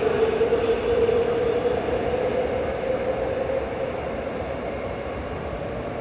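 Seoul Subway Line 3 train pulling out of the station and receding into the tunnel. A steady rumble carries a motor whine that rises slightly in pitch, and both slowly fade as the train draws away.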